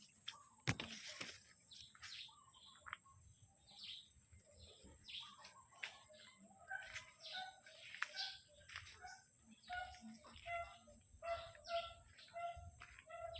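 Many birds chirping and calling, with a run of evenly repeated calls, a couple a second, from about halfway through, over a steady high hiss. A single sharp click comes just under a second in.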